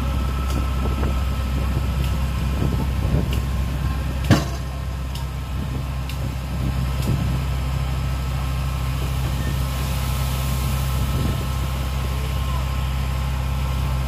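Heavy earthmoving machine's engine running steadily, with one sharp knock about four seconds in.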